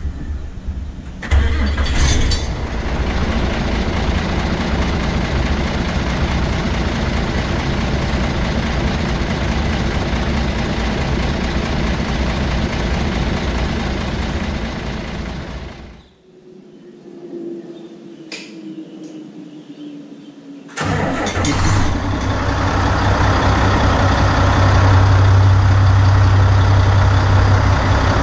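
A Nissan PF6TB 12.5-litre turbocharged intercooled diesel in a Nissan Diesel KG48U truck crane fires about a second in and settles into a steady idle. After a quieter gap of about five seconds, a second identical crane's reconditioned PF6TB diesel comes in suddenly and idles, with a sound its owner calls more rugged.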